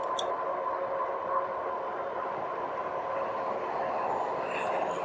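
A 2018 Rad Power RadMini fat-tyre electric bike ridden at about 23 mph: a steady hum from its hub motor and tyres on the asphalt, with a faint steady whine in it.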